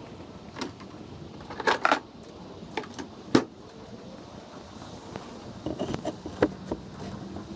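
Sharp metallic clinks and knocks, a few at a time, over a steady low hum; the loudest come in a pair about two seconds in and a single one a little after three seconds.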